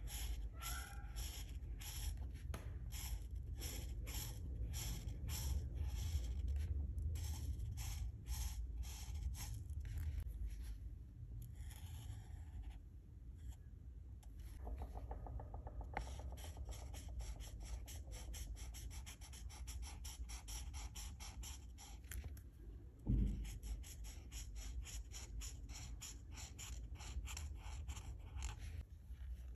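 Alcohol marker tip stroking back and forth across paper in short scratchy strokes, about two to three a second at first, then quicker and denser from about halfway through. One low thump about three-quarters of the way through.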